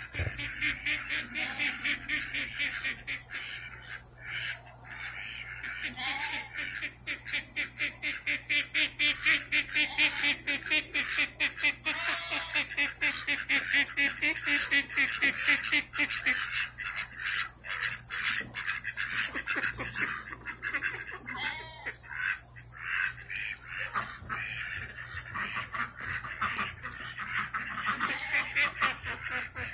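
A flock of domestic ducks quacking in a steady, rapid chatter of overlapping calls, busiest in the middle.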